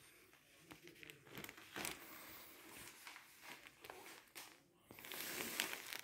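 Rustling and crinkling handling noises with scattered light clicks, growing louder for about a second near the end.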